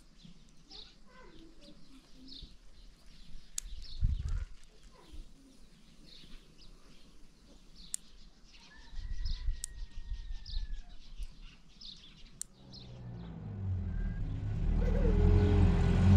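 Small birds chirping in short, repeated calls, with a couple of dull thumps. About three-quarters of the way in, a motor vehicle's engine rumble comes in and grows steadily louder.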